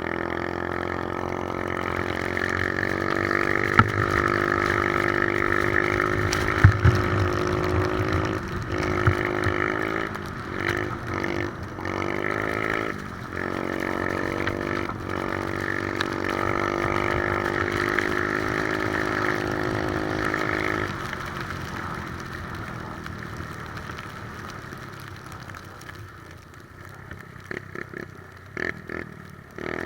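Three-wheeler ATV engine running under throttle, its note dipping and picking back up several times about a third of the way in, then falling off about two-thirds through and fading as the machine slows.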